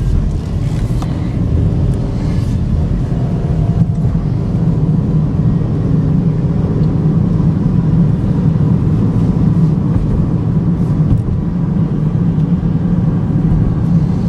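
Cabin sound of a 2013 GMC Terrain with its 2.4-litre four-cylinder under way on the road, engine and tyre noise as a steady low rumble that builds slightly in the first couple of seconds as it picks up speed to about 40 mph.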